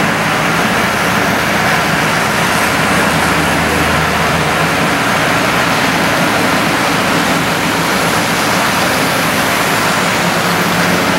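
HO scale model trains running on the layout's track: a steady, unbroken running noise of wheels and motors.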